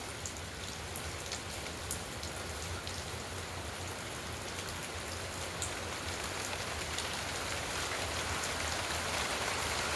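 Steady rain falling, with individual drops ticking sharply on a surface now and then; it grows slowly louder.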